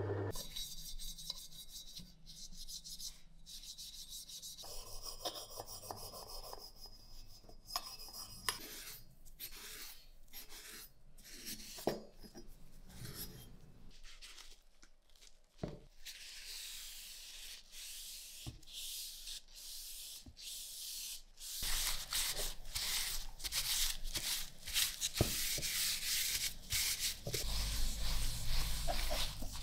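Gloved hands rubbing and wiping the metal parts of a Carcano rifle: stretches of hissy scrubbing with a cloth, paper towel and small pad, broken by many small clicks and knocks as parts are handled. The scrubbing grows louder and harsher in the last third.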